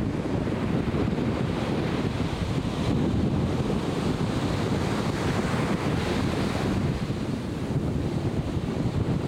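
Ocean surf washing at the shore, with wind buffeting the microphone in a steady low rumble.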